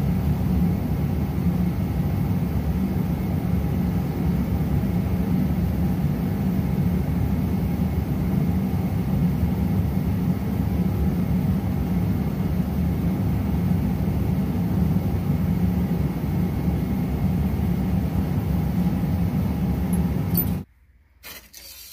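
Steady, loud, deep machine noise that holds without change and cuts off suddenly near the end.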